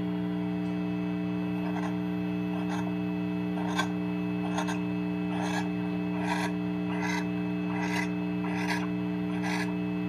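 Barn owl giving short rasping hiss calls, repeated about every 0.8 s and growing stronger after the first few, over a steady low hum.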